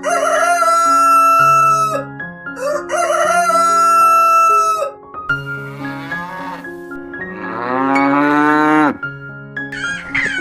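A rooster crowing twice, each crow a long held call of about two seconds, then a cow mooing with a long call that falls in pitch near the end, over background music with marimba-like notes.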